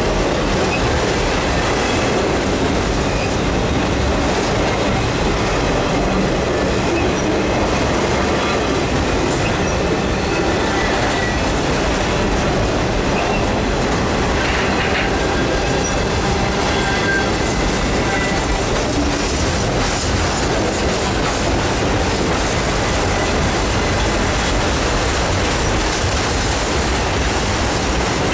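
Autorack freight cars rolling steadily past close by: a continuous rumble and clatter of steel wheels on the rails, with a few faint, brief wheel squeals partway through.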